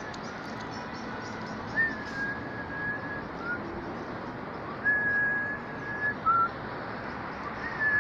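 Clear whistled notes, three times: each a long steady note with a small upward swoop at its start, followed by a short lower note, over a steady hiss.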